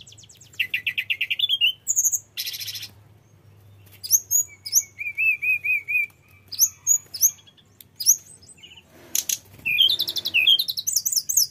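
Caged tledekan gunung flycatcher singing a varied song in full flow: quick whistled notes, slurred note series and fast trills in short phrases, with a brief lull before a burst of rapid notes near the end. A faint steady low hum runs underneath.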